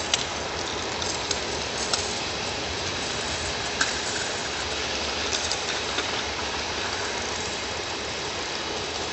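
Steady outdoor background noise picked up by a phone microphone, with a few light clicks.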